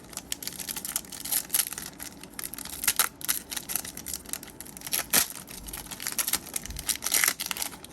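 A foil trading-card booster pack being torn open and its wrapper crinkled, with a dense run of irregular crackles and rustles.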